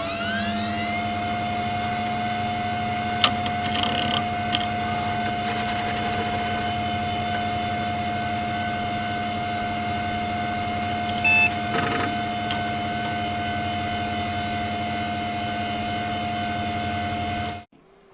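Desktop computer powering on: fans and hard drive having spun up run steadily with a constant whine and hum. A few clicks come a few seconds in, and a short beep about eleven seconds in. The sound cuts off suddenly near the end.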